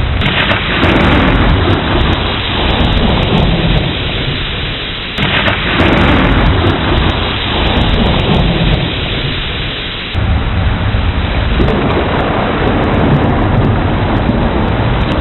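Thunderstorm: steady heavy rain with thunder rumbling over it. The thunder surges suddenly three times, about five seconds apart, and each roll fades away.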